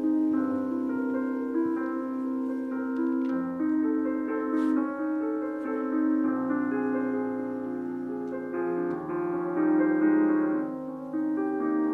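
Slow piano music: sustained notes and shifting chords over a held low note.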